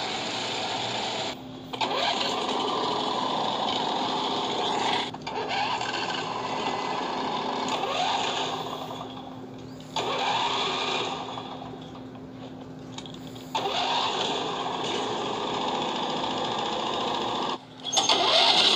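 Small engine of a 2006 Huskee riding lawn tractor being started with the ignition key, cranking and running with a steady mechanical clatter. There are several abrupt breaks between short start-up clips, and a quieter stretch in the middle.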